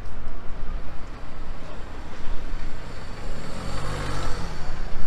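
Car passing close by at low speed, its engine note rising and falling as it goes by, loudest about four seconds in, over steady street traffic noise.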